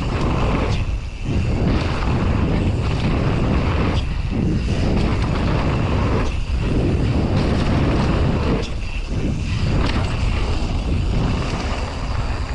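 Mountain bike ridden fast down a dirt jump line: a steady, loud rush of wind and rolling-tyre noise, with the noise briefly dropping away about four times.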